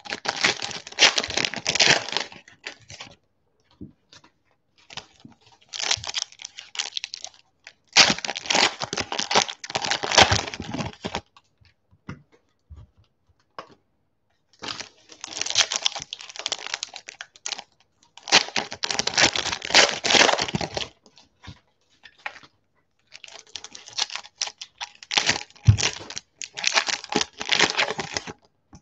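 Foil trading-card packs being torn open and their wrappers crinkled, in about six bursts of crackling with short pauses between.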